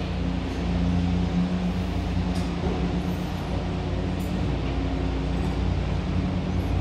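Machinery running with a steady low hum that holds one pitch throughout.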